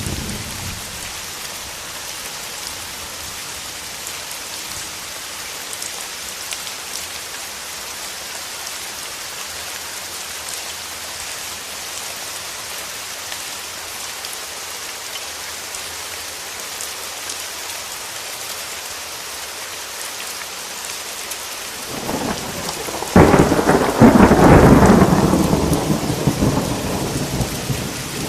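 Steady rain falling, with a thunderclap near the end: a rumble builds, a sharp crack, then rolling thunder that dies away over a few seconds.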